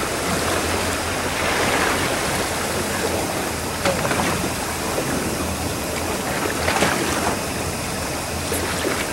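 Boat underway at sea: a steady rush of wake water and wind over the low, even drone of its engine.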